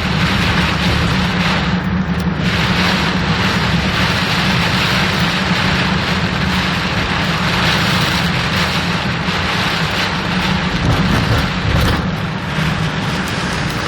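Car driving through a flooded street in heavy rain: a steady rush of rain and water spray over the low rumble of the car, with a brief lull about two seconds in.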